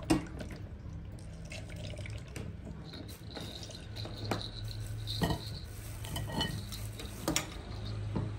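Halved green orange pressed and twisted by hand on a plastic manual citrus juicer: squishing and trickling juice with a few short plastic knocks and clicks, over a steady low hum.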